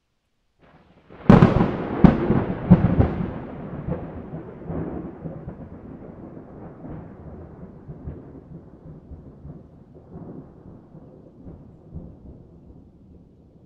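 A close thunderclap: a sharp crack about a second in and a few more cracks over the next two seconds, then a long rolling rumble that slowly fades.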